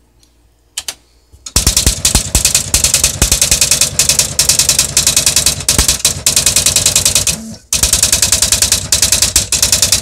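Smith Corona PWP 3 electronic daisy-wheel typewriter printing a line of text on its own: a fast, loud stream of character strikes that starts after a couple of key clicks, breaks off briefly about three quarters of the way through as it moves to the next line, then carries on.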